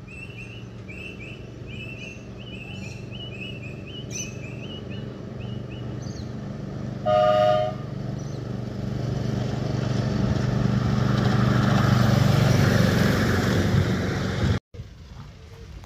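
Miniature ride-on train approaching on its narrow-gauge track: a short horn toot about seven seconds in, then the locomotive and wheels rumbling louder as it passes close by, cut off abruptly near the end. Repeated high chirps sound over a steady low hum in the first few seconds.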